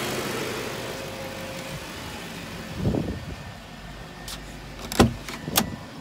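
Volvo XC90 engine idling, running again after a crank-no-start fault was cured by replacing the fuel pump electronic module. A thump comes about halfway through, and two sharp clicks near the end are the loudest sounds.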